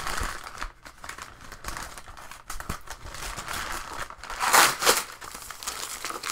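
Packaging wrap crinkling and rustling as it is pulled open by hand, in uneven bursts, loudest twice a little after four seconds in.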